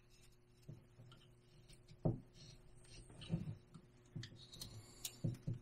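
Carving knife slicing thin cuts off the edges of a basswood block: a handful of short, faint, irregular clicks and scrapes as the blade bites and shaves.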